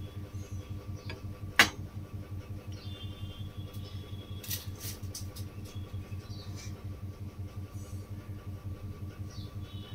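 A steady, pulsing mechanical hum with one sharp clack about one and a half seconds in, then a few lighter clicks and clatter of kitchen utensils near the middle.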